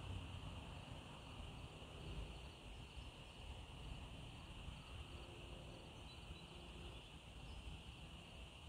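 Faint, steady chorus of insects, one unbroken high-pitched sound, over a low rumble.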